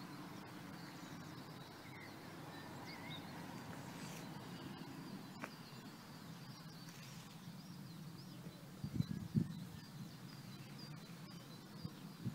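Quiet outdoor ambience: a steady low rumble with faint, scattered bird chirps, and a few soft low knocks about nine seconds in.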